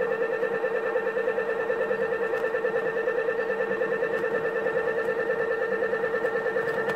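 Homemade electric motor/generator spinning a heavy steel flywheel: a steady electrical whine with a fast, regular warble.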